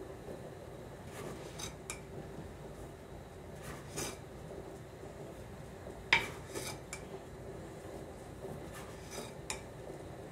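Granulated sugar being scooped out of a ceramic canister with a measuring cup and poured into a glass measuring jug: soft scraping of the scoop in the sugar, with a few light clinks of the cup against the containers, the sharpest about six seconds in.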